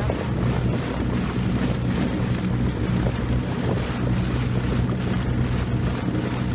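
Boat engine running steadily with a constant low hum as the boat moves across choppy water, with wind buffeting the microphone and water splashing.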